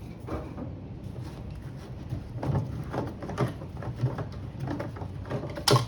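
Handling noises: scattered light knocks and clicks, busier from about two and a half seconds in, with one sharp loud click near the end, over a low steady rumble.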